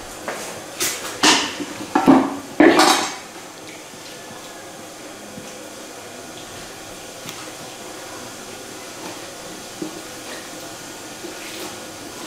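Loud clattering knocks, about five in the first three seconds, as a wooden cutting board and kitchen utensils are handled and set down on a tiled floor. After that a low steady background, with a few faint taps of a knife on the board as a raw octopus is cut.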